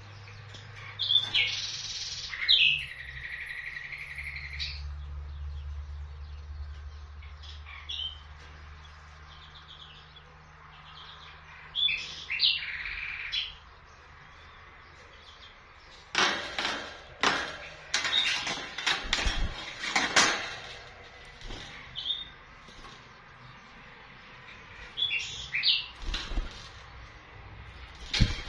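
Common nightingale singing in short phrases of clear whistles and a buzzy trill, with pauses between them. Past the halfway mark comes about five seconds of loud, sharp clicks and rattles.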